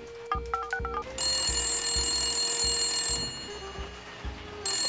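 A few quick keypad beeps, then a telephone ringing. A ring of about two seconds is followed by a pause and a second, shorter ring. Background music with a steady beat plays underneath.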